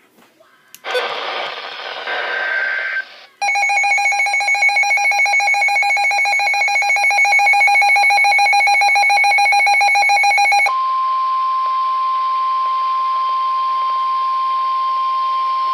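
NOAA Weather Radio emergency alert signal: about a second in, a short screech of digital header data lasting about two seconds. Then a harsh, buzzing alert tone for about seven seconds, giving way to a single pure, steady warning tone that announces a severe thunderstorm warning.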